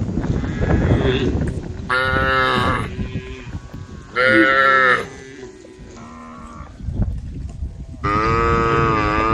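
Cattle mooing: three long, loud calls about two, four and eight seconds in, with fainter moos between them. A low rumbling noise runs under the first two seconds.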